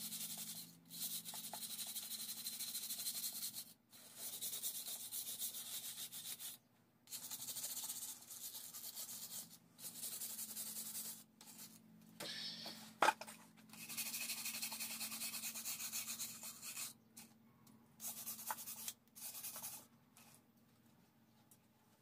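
Hand wire brush scrubbing a cast-iron Kohler engine block in repeated harsh, scratchy strokes of one to three seconds, with short pauses between them, stripping the old paint and rust before painting. A single sharp clack comes a little past halfway.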